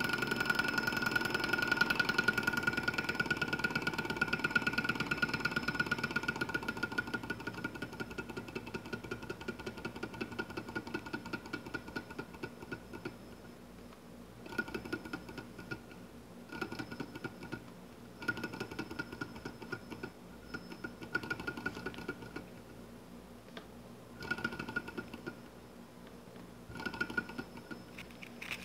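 Small model Stirling engine running with a rapid, even clatter and a steady high whine, growing gradually quieter over the first dozen seconds. Then its flywheel is spun by hand several times, and each spin sets off a short run of the same clatter and whine that dies away within a second or two.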